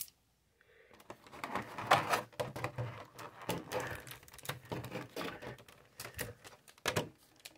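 Clear plastic blister tray from a collection box clicking, crackling and rattling as a red plastic magnetic card holder is pried out of it by hand. The handling starts about a second in and goes on as a rapid, irregular run of clicks.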